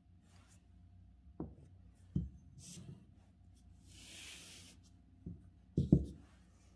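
Ink brush finishing a stroke on calligraphy paper, followed by a few soft knocks and a rustle of the paper sheet being handled. The loudest sound is a thump of hand and paper on the table near the end.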